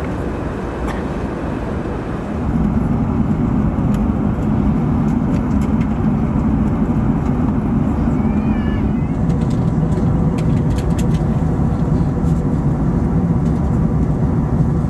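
Steady cabin noise of an Airbus A380 in flight: rushing air and the drone of the engines. The noise gets louder and deeper about two and a half seconds in, then holds steady.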